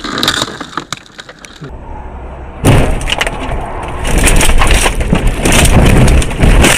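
A car running off the road and crashing through brush and young trees: a heavy rumble over rough ground with dense cracking and smashing of branches. It starts suddenly about two and a half seconds in and grows louder about four seconds in.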